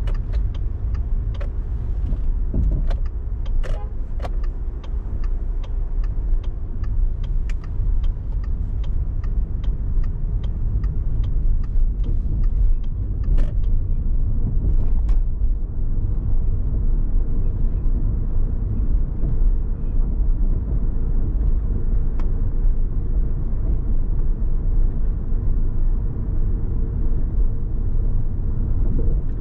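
A car driving in city traffic: a steady low rumble of road and engine noise. Through roughly the first half, a run of light, evenly spaced ticks sounds, about two to three a second.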